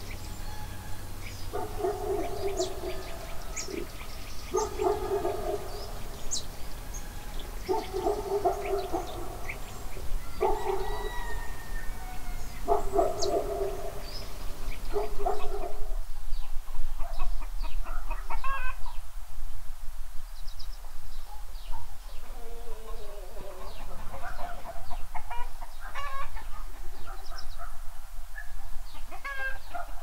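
Domestic hens clucking with repeated drawn-out calls, with small birds chirping around them. About halfway through the calls give way to busier, shorter chirps and clucks.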